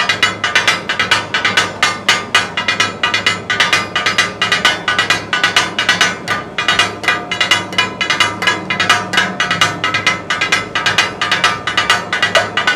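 Two steel spatulas striking a large flat iron griddle in a rapid, steady rhythm of sharp metallic clacks, several a second, as goat liver, kidney and other organ meat is chopped for taka-tak: the clatter the dish is named after.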